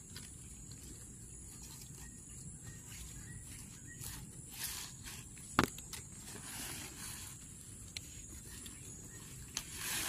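Dry grass, stems and leaf litter rustling and crackling as a hand digs out and pulls caladium tubers, with small scattered clicks and one sharp click a little past halfway. A steady high-pitched tone runs underneath.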